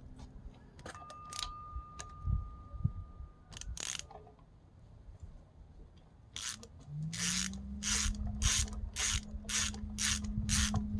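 Ratchet wrench clicking in quick, even back-and-forth strokes, about two and a half a second, starting about six seconds in, as bolts are worked loose on a Ford 2.3L Duratec engine. A low hum rises in pitch and then holds steady behind the strokes.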